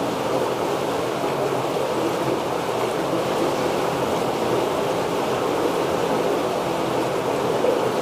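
Steady rush of running water, a stream flowing through a marble cave, at an even level throughout.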